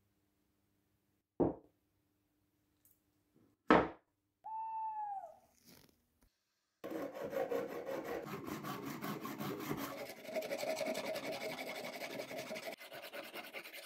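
A metal file scraping along a braided silver wire in quick, continuous strokes, filling the second half. Before that come two sharp knocks and a short pitched call that rises and falls.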